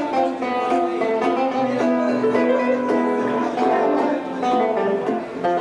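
Acoustic guitar played with a steady flow of picked notes and chords.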